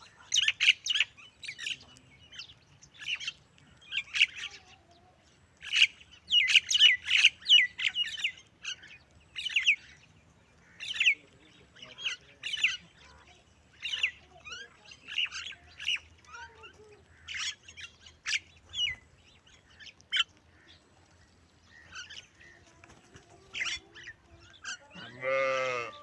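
Common mynas chattering: many short, harsh squawks and chirps in quick runs, over and over with brief gaps. Near the end comes one longer, lower call of about a second.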